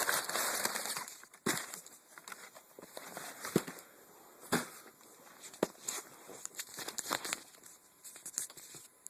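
Packaging being torn open and handled: a burst of tearing and rustling in the first second, then scattered light knocks and clicks as the contents are handled.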